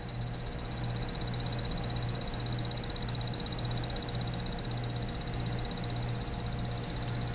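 Seiko Addison/Ryan battery alarm clock's beep alarm sounding: a piercing high-pitched electronic beep repeated rapidly, about six or seven beeps a second.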